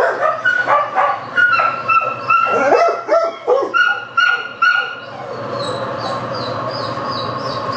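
Dogs in shelter kennels barking and yipping over and over: short, high-pitched barks coming a few times a second, with overlapping calls at different pitches.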